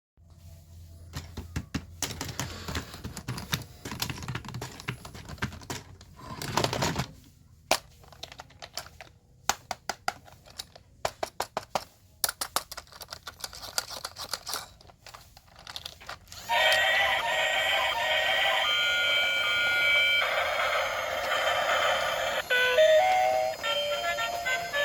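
Irregular clicks and taps, some in quick runs, for about sixteen seconds. Then music with a clear melody starts suddenly and carries on louder.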